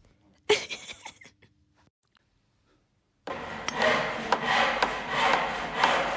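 Hand saw cutting through wood in a steady back-and-forth rhythm, about two strokes a second, starting about three seconds in: the sound of building work.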